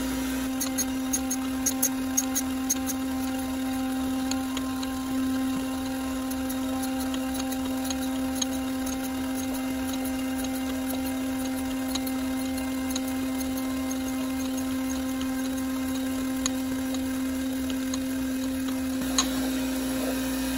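DoALL automatic surface grinder running, its wheel taking light finish passes across a 1911 frame under flood coolant: a steady motor hum with scattered sharp ticks, most of them in the first few seconds.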